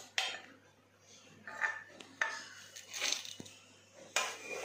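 Small steel tumbler scooping and knocking against dry millet grains in an aluminium pressure cooker, with the grains rustling: a few short scrapes and clinks, spaced about a second apart.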